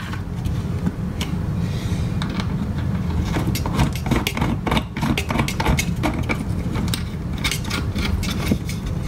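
Small metal nuts and screws clicking and rattling irregularly as they are handled and fitted onto screws through a 3D-printed plastic part, over a steady low hum.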